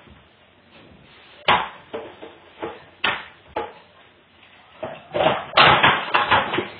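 Irregular knocks and taps of plastic play-dough tools and moulds on a tabletop: a few single knocks, then a quick cluster of louder ones about five seconds in.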